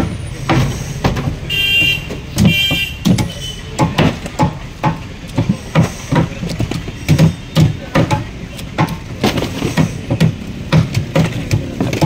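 A heavy knife chopping through a parrotfish and scraping off its scales on a wooden block: a run of sharp, irregular knocks and scrapes, roughly one to two a second.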